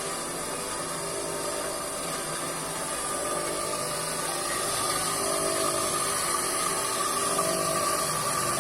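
Electric motor from a used water pump, driving a homemade coconut grater, running steadily with a constant whine.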